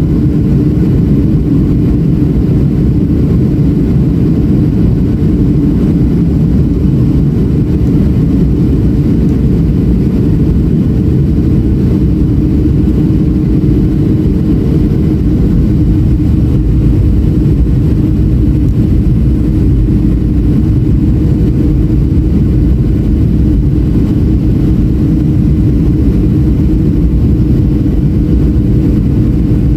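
Steady cabin drone of a Boeing 737-700 heard from a window seat over the wing: CFM56-7B turbofan engine noise and airflow, deep and even. A hum within it steps slightly higher in pitch about halfway through.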